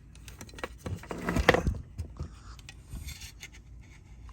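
Hookup wire being fed through a hole in a metal power-supply chassis: rubbing and scraping with small clicks of handling, busiest about a second and a half in.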